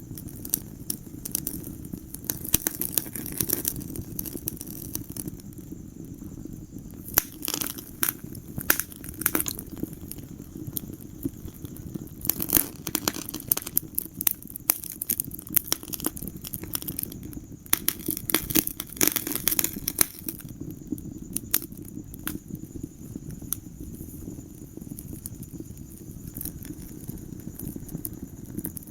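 Wood fire crackling in a fireplace: irregular snaps and pops, some in quick clusters, over a steady low rumble of the flames.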